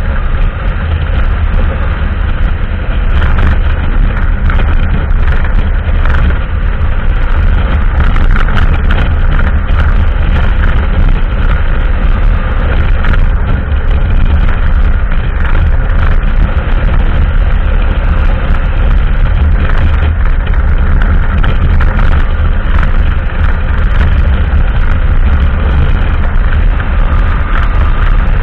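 Kasinski Mirage cruiser motorcycle running steadily at highway speed, heavily masked by a constant rush of wind buffeting the microphone.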